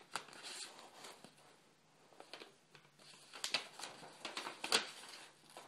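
Plastic bag and paper sheets rustling and crinkling as they are handled. The rustling grows busier and louder in the second half, with a few sharp crackles.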